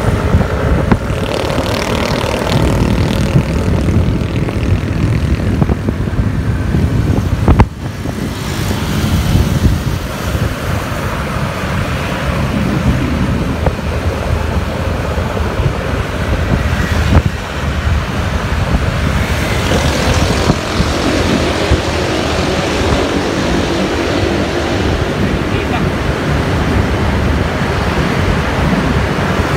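Heavy wind rumble on the microphone of a motor scooter riding at about 50 km/h, mixed with road noise. A brief sharp knock comes about eight seconds in.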